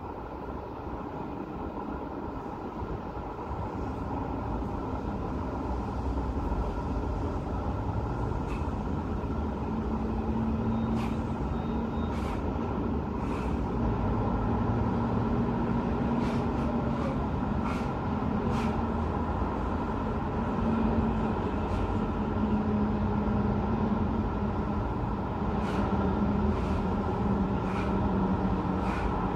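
Road traffic: a steady rumble of passing vehicles that grows louder over the first dozen seconds, with a vehicle engine's low hum through the middle and later part and scattered short clicks.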